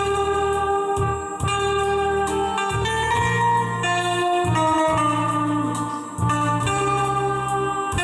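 Guitar duet playing a slow hymn tune: a sustained melody line over a steady bass, the notes changing about once a second.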